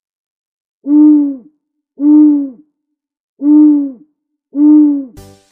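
An owl hooting four times, slowly and evenly spaced. Each hoot is a low, steady note about half a second long that dips slightly at its end.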